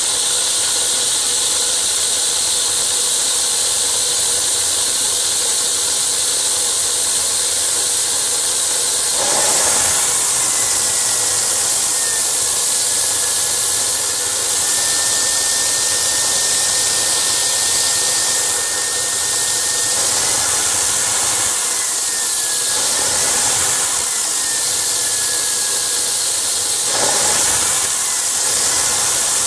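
Homemade turbocharger gas turbine jet engine running steadily: a loud rushing hiss of air and combustion with a faint whine that drifts in pitch. It swells briefly louder twice, about ten seconds in and near the end.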